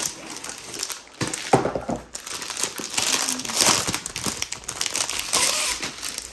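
Clear plastic sleeve around a rolled canvas crinkling and rustling as it is pulled out of a cardboard box and handled, with a sharp crackle about one and a half seconds in.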